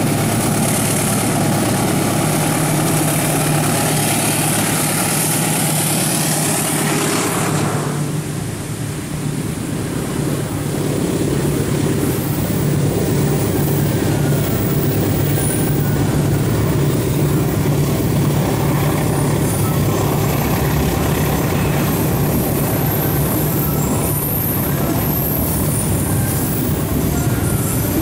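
Diesel locomotive of a long freight train passing close by, its engine loud until it passes and fades sharply about eight seconds in. The tarpaulin-covered freight wagons then roll past with a steady rumble of wheels on the rails.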